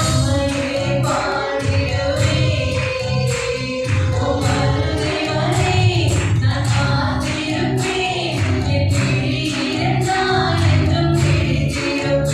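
Christian worship song: a choir singing over steady instrumental accompaniment with a regular beat.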